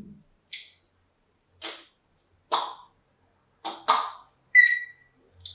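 African grey parrot making a series of short, raspy squawks and clicky sounds, about one a second, with a brief whistle near the end.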